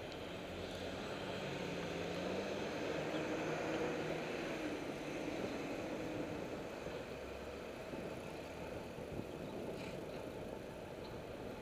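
City street traffic heard from a moving bicycle: a vehicle engine revs up as it pulls away alongside, its pitch rising over the first few seconds, over a steady rush of road and wind noise.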